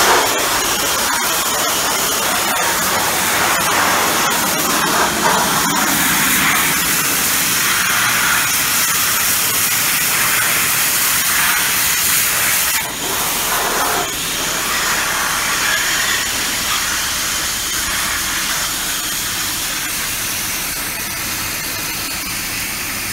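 Pressure-washer jet spraying into a tractor's hydraulic oil cooler and onto concrete: a loud, steady hiss of water with a brief break about halfway through. The cooler is being flushed to clear a suspected clog, and debris comes out of it.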